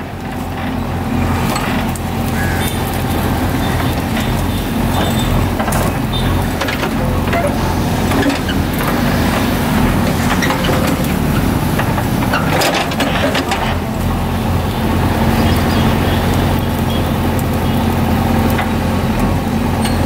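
JCB 3DX Eco backhoe loader's diesel engine running steadily under load as the backhoe arm pushes a large tree trunk over, with a few short knocks about six seconds in and again about two-thirds of the way through.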